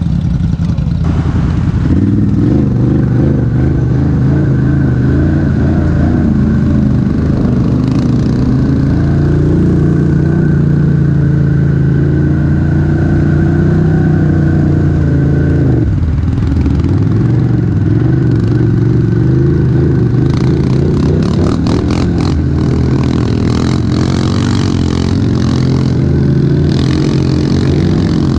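ATV engine running under load at low speed, its pitch rising and falling with the throttle and dipping briefly about halfway through. In the second half it is joined by a run of clattering and knocks.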